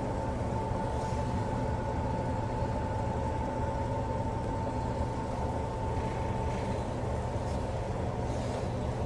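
Electric commuter trains standing at a station: a steady low hum of their onboard equipment, with a steady high whine that weakens about six and a half seconds in.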